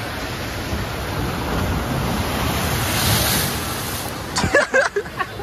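Steady rush of water running and splashing down a waterslide, swelling a little near the middle, with a few short sharp sounds and voices near the end.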